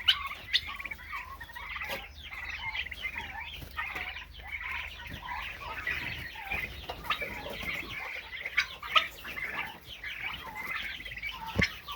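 A flock of turkeys calling, many short overlapping chirps and clucks, as they are herded out of their pen. A single knock comes near the end.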